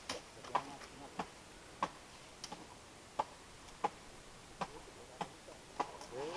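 About ten sharp chopping strokes, evenly spaced roughly two-thirds of a second apart, from a harvester cutting at the crown of a coconut palm, heard faintly from below.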